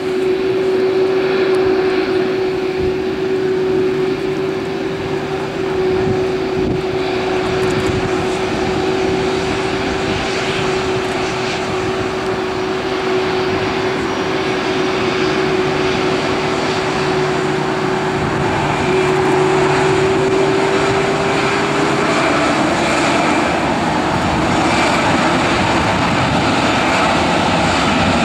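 Airbus A319 airliner taxiing, its twin jet engines at idle thrust: a steady whine over a broad rush of engine noise. The whine fades about 22 seconds in, and a rising tone begins near the end.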